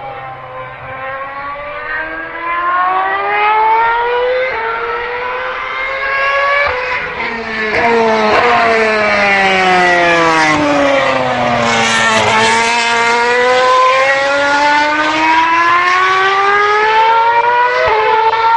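BMW Sauber Formula One car's high-revving V8 engine: the pitch climbs in steps through quick upshifts, winds down steadily as the car slows, then climbs again through the gears. It gets louder about halfway through.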